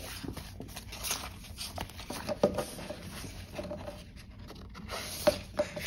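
Planner sticker sheets being handled and sorted: light paper rustling with scattered small taps, the clearest about two and a half and five seconds in.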